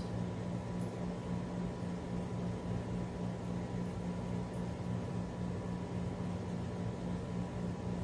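Steady low machine hum with a faint thin whine above it, unchanging throughout.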